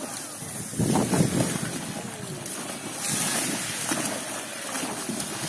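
A dog bounding and splashing through shallow sea water at the shoreline, with louder splashes about a second in and again around three to four seconds in. Wind buffets the microphone over the wash of small waves.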